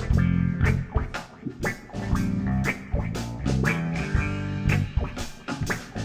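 Live rock band playing an instrumental passage: electric guitar, bass and keyboard over a drum kit keeping a steady beat.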